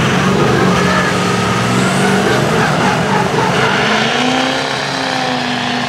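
Two mega mud trucks' engines running at full throttle under heavy load as they pull against each other, bumper to bumper, in a tug of war. The engine pitch rises about four seconds in.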